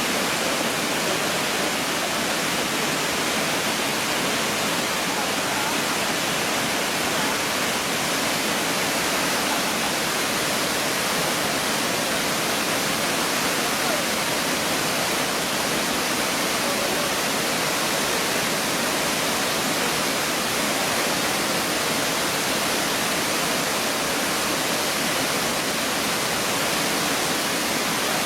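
Shiraito Falls, a waterfall, making a steady, unbroken rush of falling water.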